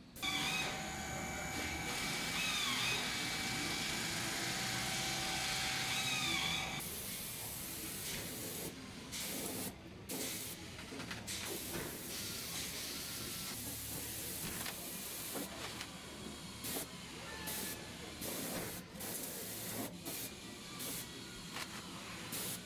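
Spray equipment hissing as undercoating is sprayed onto a vehicle's underside. For the first seven seconds a steady whine with a few sliding squeaks rides over the hiss; after that it is an even hiss broken by many brief drop-outs.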